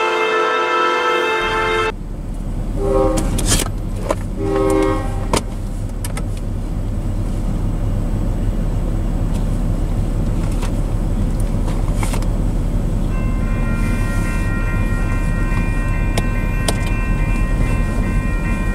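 Locomotive air horn sounding a chord, cut off about two seconds in. Then two short blasts from a distant train horn over a steady low rumble, and from about thirteen seconds in a railroad crossing's warning bell ringing as the crossing activates.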